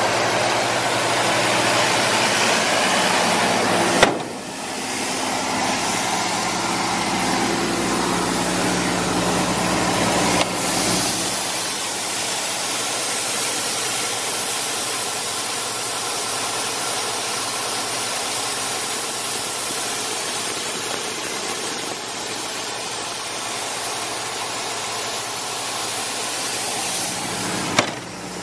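Cummins diesel engine of a Doosan 9/300 portable air compressor running steadily, a loud even rush of noise over a steady engine hum. The sound changes abruptly about four seconds in and again about ten seconds in.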